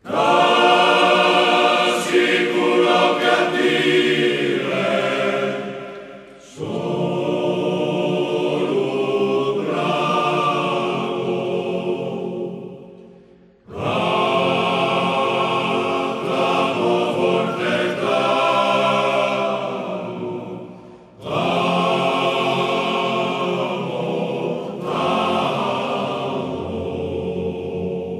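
A group of voices singing unaccompanied in close harmony. Four held phrases of about seven seconds each, with a short break between them.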